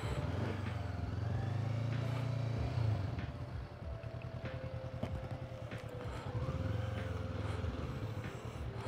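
Honda CB500F's 471cc parallel-twin engine running at low speed, the revs picking up twice, about a second in and again about six seconds in, and falling back between.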